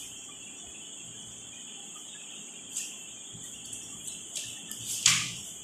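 Steady high-pitched chirring of insects in the background, with a few short paper rustles toward the end as the pages of a book are turned.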